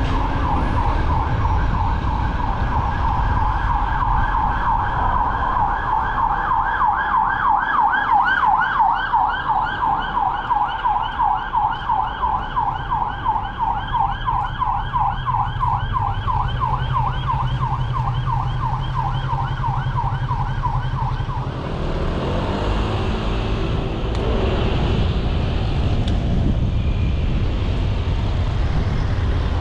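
Emergency vehicle siren sounding a fast yelp, a quick pitch sweep repeated several times a second, which cuts off suddenly about twenty-one seconds in. Car engine and road noise run underneath.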